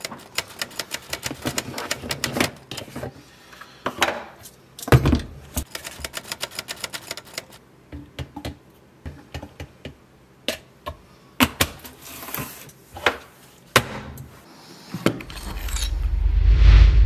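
Typewriter keys clacking, first in a quick run and then in scattered single strokes. Near the end a low, rising swell builds to a deep rumble.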